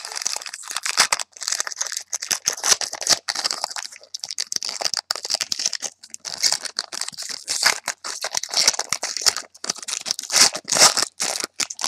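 Foil wrappers of football trading-card packs crinkling and rustling as they are opened and handled, a dense run of irregular crackles and clicks.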